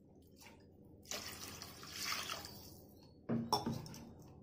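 A plastic spatula stirring water through soaked chana dal in a pan, with liquid swishing and slopping and one sharper, louder stroke a little past three seconds in.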